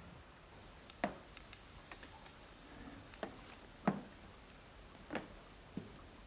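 About half a dozen light, sharp clicks and taps at uneven intervals over a quiet background, the loudest about four seconds in and about five seconds in.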